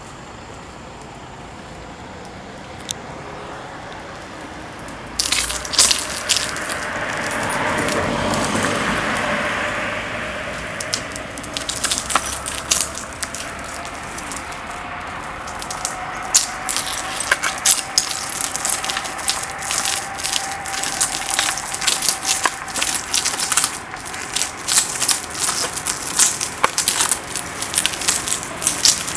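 Two-wheel self-balancing scooter's wheels rolling over broken glass shards, crunching and crackling them into many sharp clicks. The crunching starts about five seconds in and grows denser toward the end.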